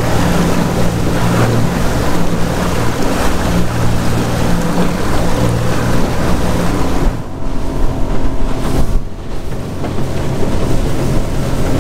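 Motorboat running at speed: a steady engine hum under the rush of water and spray along the hull, with wind on the microphone. About seven seconds in the sound shifts, the engine hum weakening, with a couple of brief dips.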